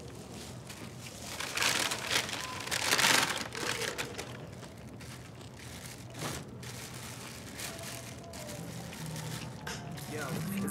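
Clear plastic wrap crinkling around a sandwich as it is handled and eaten, in a few irregular rustling bursts, loudest about two to three seconds in.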